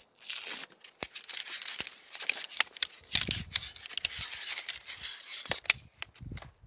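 Folding camp chair being unpacked and put together: the canvas seat rustling while the black metal frame poles clack and snap into the plastic hub, many sharp clicks in a row. Two dull knocks about three and six seconds in.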